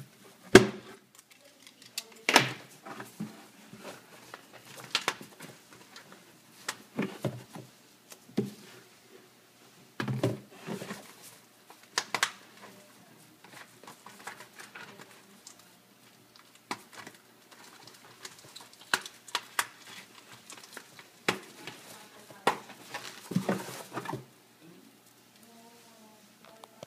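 Dried newspaper papier-mâché shell being handled and turned, its stiff paper crinkling and rustling in irregular bursts, with one sharp pop about half a second in.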